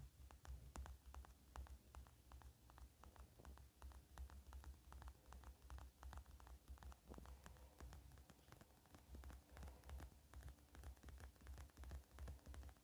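Foam slime worked by hand, giving off faint, dense crackling made of many tiny clicks and pops, over a low rumble.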